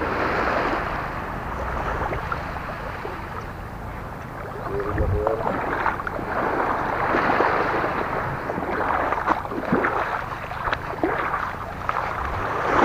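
Small waves washing over a pebble shore, the stones rattling and clicking, with wind rumbling on the microphone.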